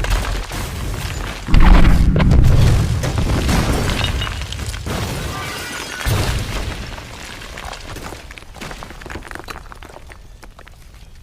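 Film sound effects of a hospital building being blown up: a heavy explosion about one and a half seconds in, then crashing, shattering debris and a rumble that slowly dies away, with a smaller blast about six seconds in.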